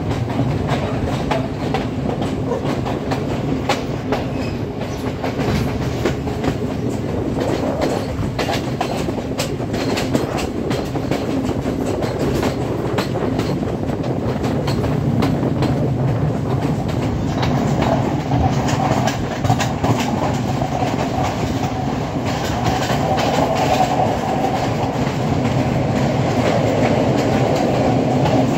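Passenger train carriages running along the track, a steady rumble and rattle with the wheels clicking over rail joints, heard through an open carriage doorway.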